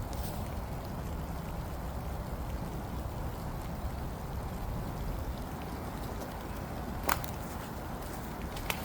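Steady outdoor background of rain with a low rumble underneath, broken by a few sharp clicks near the end.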